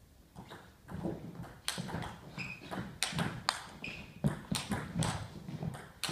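Table tennis rally: the ball clicking sharply off bats and table in quick alternation, a few hits a second, starting about half a second in, with a couple of short high squeaks among them.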